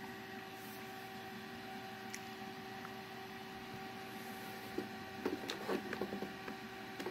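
Desktop PC running as it boots: a faint steady fan hum with a low steady tone, and a few light clicks and taps about five to six seconds in.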